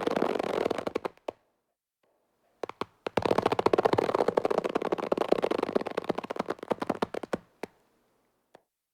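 Cartoon face-stretch sound effect: a rapid crackling creak made of fast clicks, in two long runs with a silent gap of about a second between them, followed by a few single clicks near the end.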